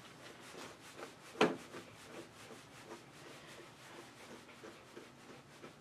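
Faint, rhythmic rubbing strokes of a grooming tool drawn through a Coton de Tulear's long coat, with one sharper click about a second and a half in.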